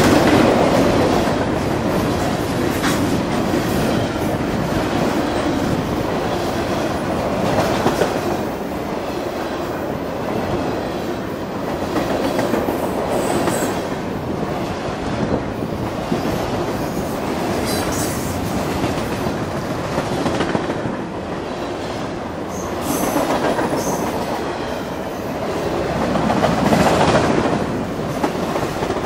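Freight train cars rolling past, wheels clacking over the rail joints, with a few faint, brief high wheel squeals. The sound swells near the start and again near the end.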